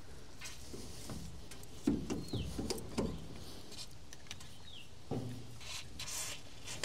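A few metal clunks and knocks from an old Massey Ferguson tractor's hydraulic control levers being worked and let spring back toward neutral, with a few short hisses. A bird chirps twice in the background.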